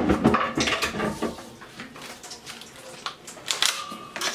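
Kitchenware clattering against a pot while ingredients go in: a sharp loud clack at the start, a run of clinks and rattles for about a second, then a few lighter clinks near the end.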